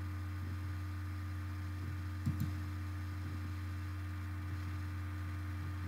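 Steady low electrical hum, with two faint clicks a little over two seconds in.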